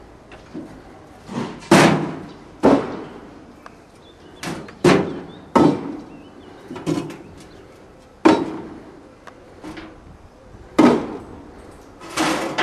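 Clay bricks being loaded by hand into a hoist's plastic bucket, each one landing with a hard clunk: about a dozen knocks at uneven intervals.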